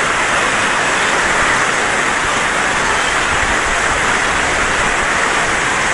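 Fast muddy floodwater rushing in a strong current, a steady, loud rush of water.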